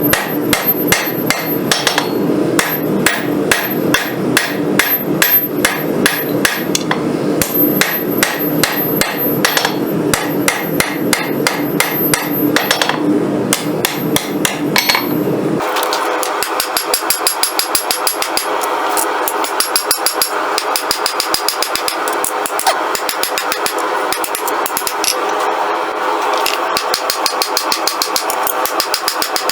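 Hammer blows on hot steel over an anvil, forging the bevels of a blade made from a rail spring clip, several strikes a second. About halfway through, the sound turns thinner and more even, with the deep ring of the blows gone.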